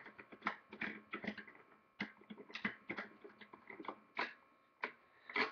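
Quick, irregular light clicks and taps of hands handling a lipstick and twisting off its top, with a louder click near the end.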